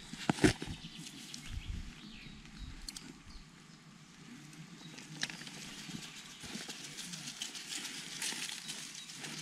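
Hands working loose soil and a clump of turf, lifting, crumbling and pressing it down: a soft rustling and crumbling of earth and grass, with a sharp knock about half a second in.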